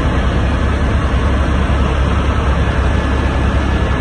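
Helicopter in flight heard from inside the passenger cabin: steady rotor and engine noise, a loud, even, deep drone.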